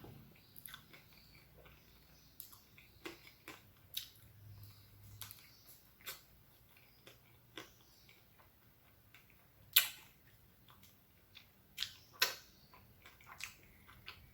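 Close-up eating sounds of ice cream in a crisp wafer shell: scattered crunches and wet mouth clicks with pauses between, the loudest about ten seconds in and two more around twelve seconds.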